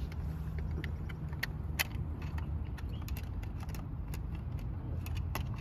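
Scattered plastic clicks and rattles as a battery and magazine are fitted into a toy gel-ball blaster, the sharpest click about two seconds in, over a steady low rumble.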